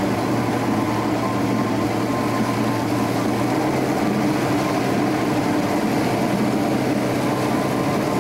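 V6 outboard motor running steadily at cruising speed, a constant engine drone over the rush of water from the boat's wake.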